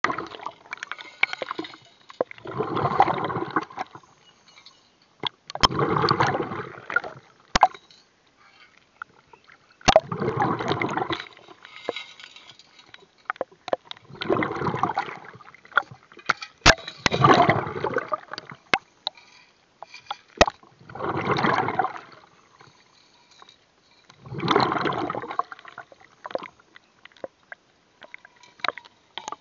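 Water gurgling and sloshing, heard underwater, in regular bursts about every three to four seconds, with a few sharp clicks in between.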